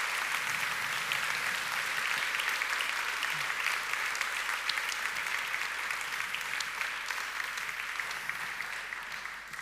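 Audience applauding steadily, the clapping tapering off near the end.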